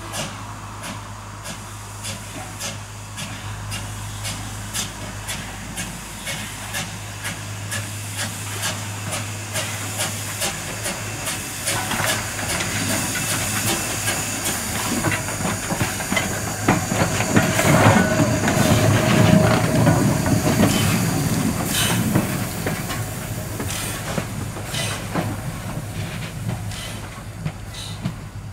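Caledonian Railway No.419, a 0-4-4 tank steam locomotive, passing under way: regular exhaust chuffs over a steady hiss of steam. It grows louder to its nearest point about two-thirds of the way through, then fades as it moves away.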